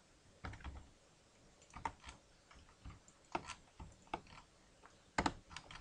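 Faint computer keyboard keystrokes and mouse clicks, a dozen or so short clicks at irregular intervals.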